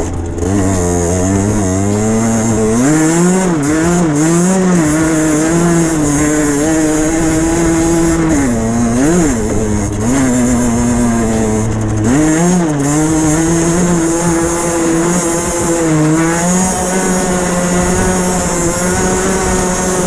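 A Derbi Senda 50cc two-stroke single-cylinder engine with an aftermarket Enox exhaust, running hard under load up a dirt hill. The revs dip and pick up again several times as the throttle is worked.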